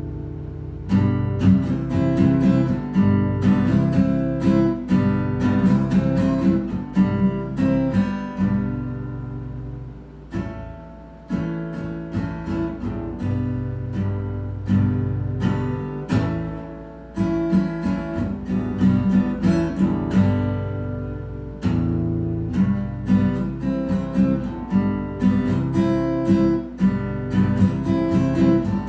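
Acoustic guitar strummed in a steady rhythm, chords mixed with picked notes. Twice a chord is left to ring and fade before the strumming starts up again.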